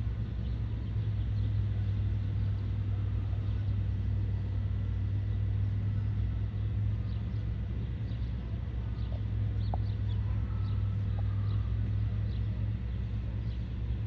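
Steady low rumble of a vehicle engine running nearby amid city traffic, with small birds chirping in short, high notes from about halfway through.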